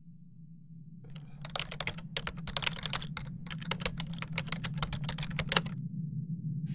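Rapid computer keyboard typing: a quick run of key clicks starting about a second in, with a brief pause midway, stopping near the end, over a steady low hum.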